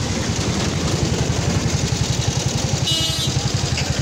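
A motor vehicle's engine running close by with a fast, even low throb, amid road traffic. A short high-pitched tone sounds about three seconds in.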